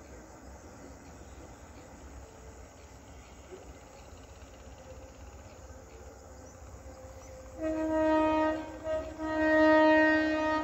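Horn of an approaching ICF Medha EMU local train sounding three blasts in the last few seconds, a medium one, a very short one, then a longer one, each a single steady note. Before the horn there is only a faint low hum.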